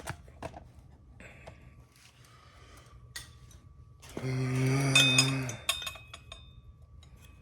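Impact wrench run in one burst of about a second and a half, hammering a rear sprocket bolt loose from the hub. Light metallic clicks of the tool and parts come before and after it.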